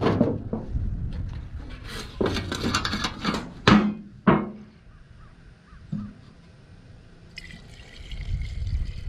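A few handling knocks and clicks, then from about seven seconds in a steady trickle of two-stroke fuel mix poured into a Stihl MS192 chainsaw's empty fuel tank.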